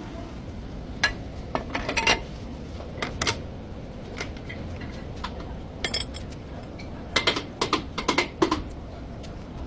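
Metal tools and brake parts clinking and clanking in irregular groups of sharp knocks, busiest from about seven to eight and a half seconds in, over a steady low rumble.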